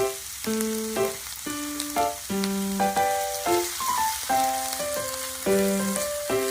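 Background music, a simple melody of held notes changing about once or twice a second, over a steady sizzle of food frying.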